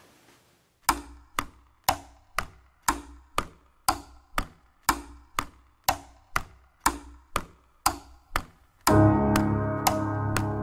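Piano-and-cello cover music opening with sharp, evenly spaced wooden taps, about two a second. Near the end, sustained piano chords and cello come in.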